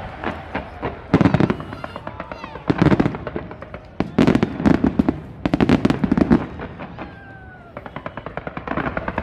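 Fireworks going off in repeated salvos of sharp bangs and crackles, bunched in clusters a second or so apart. A fast run of crackling comes near the end.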